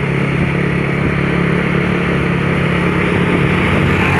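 A bus's diesel engine running steadily at a constant low pitch, with no revving.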